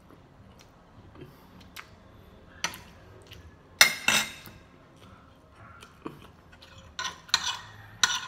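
A metal spoon clinking and scraping against a plate during a meal: a handful of sharp clinks at irregular intervals, the loudest pair about four seconds in and a few more near the end.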